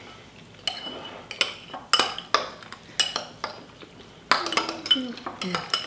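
Metal spoons clinking and scraping against small glass bowls as several people eat, in irregular clinks, some ringing briefly.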